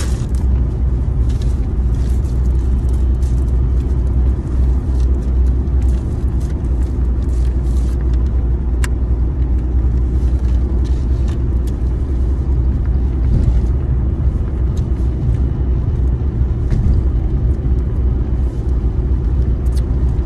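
Car engine and road noise heard from inside the cabin: a steady low rumble, with a few faint clicks.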